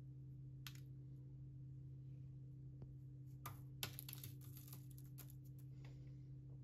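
A soft, crumbly gurabije cookie broken apart by hand, giving a few faint crackles and ticks as it splits and crumbs drop onto parchment paper, the clearest about three and a half to four seconds in. A low steady hum runs underneath.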